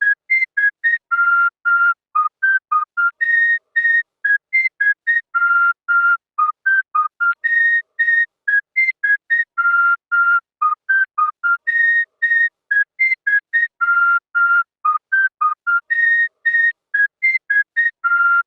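A whistled tune of short, clipped notes with gaps between them. The same four-second phrase repeats over and over, as a looped sound effect.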